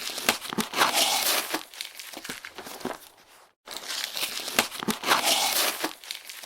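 Cardboard box being opened: packing tape tearing and cardboard rustling and crinkling, with crackly clicks. The same stretch of about four seconds plays twice, with a sudden gap between.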